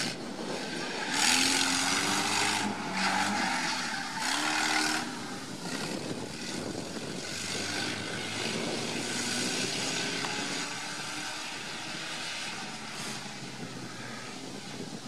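Off-road 4x4 engine revving up and down on a sprint course. Its pitch rises and falls with the throttle. Two loud rushing surges, about a second in and around four seconds, are the loudest part.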